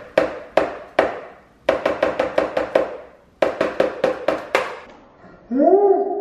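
An egg tapped again and again on the rim of a red plastic mixing bowl to crack it: quick sharp taps in three bursts, each ringing briefly off the bowl. Near the end a short pitched tone slides up and then holds for about a second.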